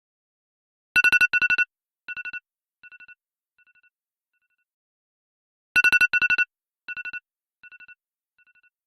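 iPhone 'Radar' alarm tone: a quick cluster of rapid high beeps, then fainter repeats of it that die away, the cycle starting about a second in and again near six seconds.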